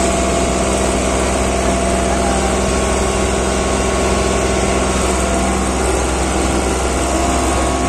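Farm tractor's diesel engine running steadily, its pitch and level holding even.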